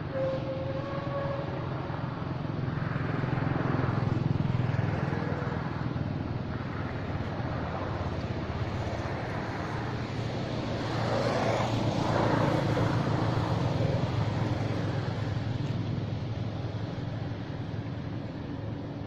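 Engine noise of passing road vehicles: a steady low hum that swells and fades twice, the second pass closer and louder.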